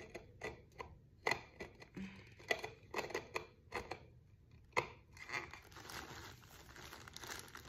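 Irregular sharp clicks and taps with rustling and crinkling, as packaging is handled during an unboxing.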